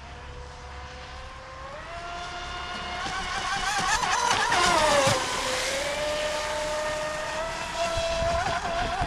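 Vector SR80 Pro RC speedboat's 2300 kV brushless motor whining at speed on a 3S battery. The whine grows louder as the boat approaches, its pitch drops as it passes about five seconds in, and it then holds a steady whine as the boat runs on across the water.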